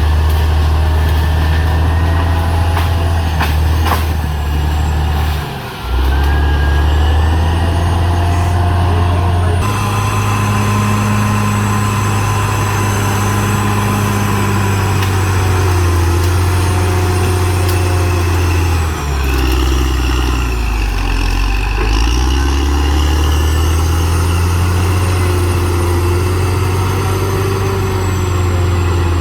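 CAT D6R XL bulldozer's diesel engine running under working load, its low note stepping up and down several times as the load changes, with a brief drop in loudness about six seconds in.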